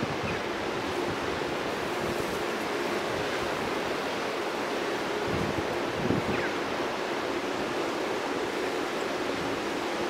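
Wind blowing across the microphone in gusts, a steady rushing noise with low buffeting. A faint steady tone runs underneath.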